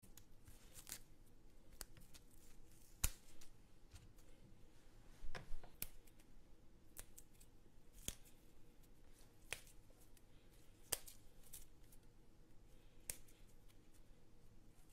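Faint, scattered sharp clicks and small taps, roughly one every second or two, over a low steady hum.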